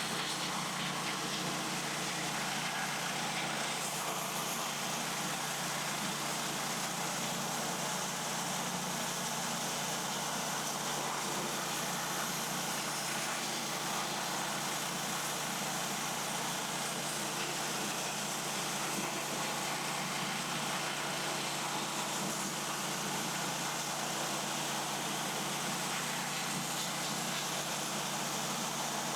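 MechMaxx SM32 portable bandsaw sawmill running steadily under engine power, with its blade cutting through a log.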